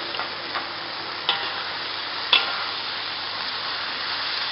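Fiddlehead ferns sizzling as they stir-fry in hot oil in a wok. A spatula clinks against the wok a few times; the two sharpest knocks come about a second in and just over two seconds in.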